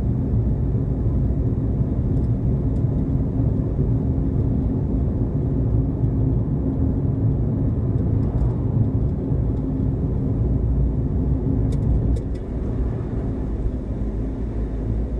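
Car driving: a steady low rumble of engine and road noise, easing off a little about twelve seconds in.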